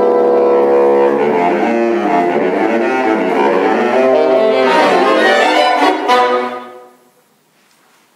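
Saxophone quartet playing, a held chord giving way to quick moving lines in all four parts. The playing stops about six and a half seconds in and dies away.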